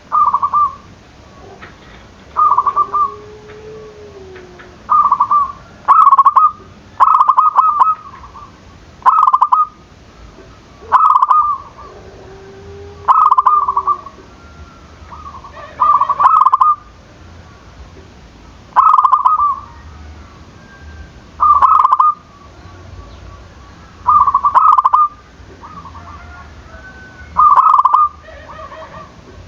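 Zebra doves (perkutut) cooing, in repeated short phrases of quick staccato coos, one phrase every second or two.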